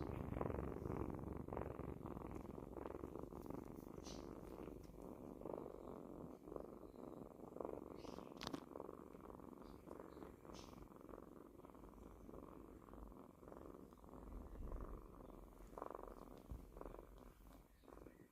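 Kittens purring steadily while drinking milk, with small clicks now and then; the purring slowly grows fainter.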